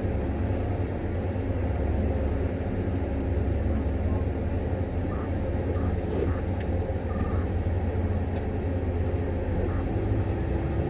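Heavy mining machinery's large diesel engines running with a steady low drone as a Liebherr 9400 hydraulic excavator loads a Cat 785C haul truck. A faint clack comes about six seconds in.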